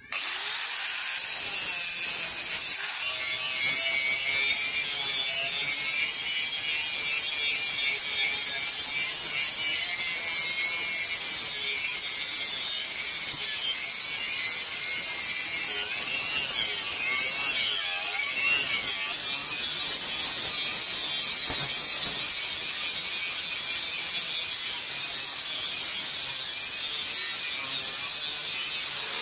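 Electric angle grinder with an abrasive disc grinding a forged steel machete blade: a steady high whine and hiss of disc on steel. It starts up suddenly right at the beginning.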